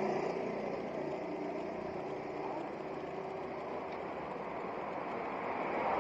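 A motorcycle engine fading as the bike moves away, over a steady haze of road and traffic noise that grows louder again near the end.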